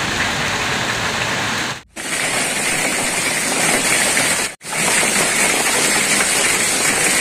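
Heavy rain falling in a steady rush, cutting out briefly twice: about two seconds in and again near the middle.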